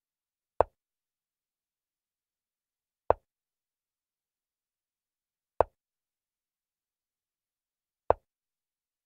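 Chess-move sound effect: four short knocks evenly spaced about two and a half seconds apart, one as each move is played on an animated board.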